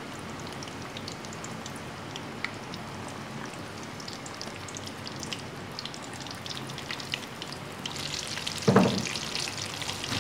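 Bread-crumbed green chillies deep-frying in oil over a low to medium flame: a steady sizzle dotted with small pops and crackles, growing louder in the last couple of seconds. A single knock sounds near the end.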